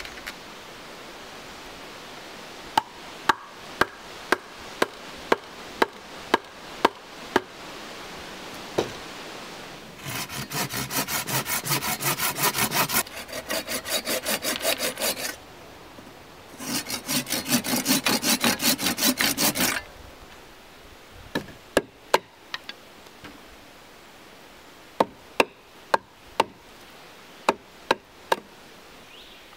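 Folding pruning saw cutting through a wooden peg in two spells of quick back-and-forth strokes, each a few seconds long. Runs of sharp wooden knocks come before and after the sawing.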